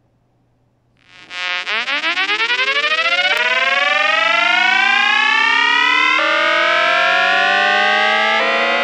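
Simulated VVVF inverter and traction-motor sound of an electric train accelerating from a stop: a loud, many-toned whine that starts about a second in and rises steadily in pitch. It changes abruptly three times as the inverter switches pulse modes, from 45 to 27, then 15, then 9 pulses.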